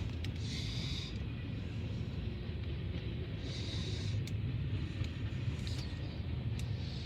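Freight train cars rolling past: a steady low rumble of steel wheels on rail, with a few sharp clicks and short high hissing patches every few seconds.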